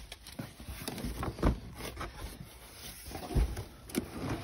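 Handling noise of unpacking: plastic packing and a cardboard shipping box rustling and knocking as a mixing console is reached for inside the box. There are scattered small clicks and a few thuds, the clearest about a second and a half in and a low thump about three and a half seconds in.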